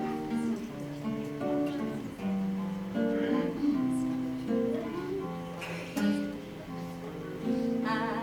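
Acoustic guitar playing an instrumental passage of sustained, changing chords. A singing voice comes in near the end.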